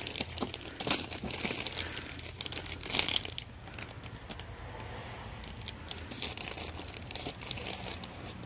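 Plastic packets of respirator filters crinkling and rustling as they are handled with a gloved hand, in irregular crackles that are loudest about a second in and about three seconds in.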